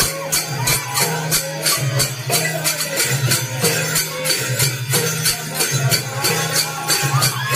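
Konkan folk music for a Sankasur dance. A drum keeps a steady pulse, metallic jingling strikes come about four times a second, and a voice sings a wavering melody over them.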